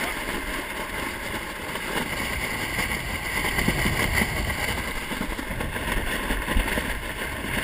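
Wind buffeting the microphone over water rushing and splashing along the hull of a 470 sailing dinghy moving fast through choppy waves; a steady rush with no let-up.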